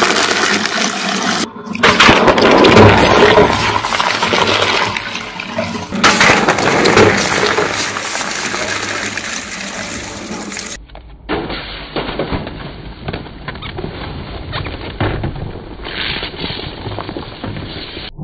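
Twin-shaft shredder's blades crushing and tearing full aluminium drink cans, with metal crunching and fizzy cola hissing and splashing as it sprays out. The sound breaks off abruptly and picks up again several times.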